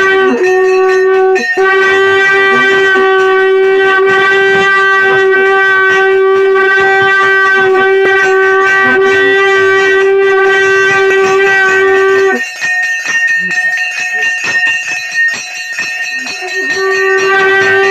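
A long straight horn blown in one steady, loud held note, with a brief break about a second and a half in. It stops about twelve seconds in, leaving scattered knocks and clatter, and takes up the same note again near the end.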